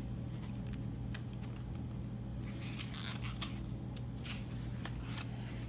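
Paper rustling and crackling as a page of a picture book is turned by hand, with a few sharp paper clicks, most of them around the middle and again near the end, over a steady low hum.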